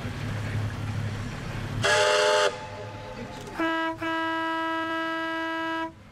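Steam locomotive whistles on a double-headed steam train: a short, loud blast about two seconds in, then a longer, lower-pitched blast with a brief break near its start, cut off sharply near the end.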